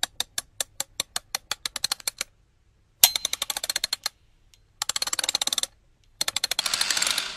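Rapid mechanical clicking sound effect in four runs with short gaps: the first speeds up from a few clicks a second to a fast rattle, and the last blurs into a hiss near the end.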